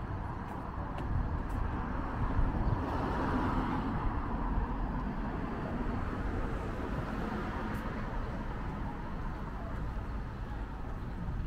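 City street traffic: a steady hum of road noise, with a car passing that swells and fades a few seconds in.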